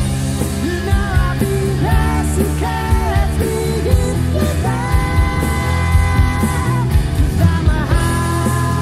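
Rock song with a lead vocal singing a melody over the band's steady beat; about halfway through the singer holds one long note.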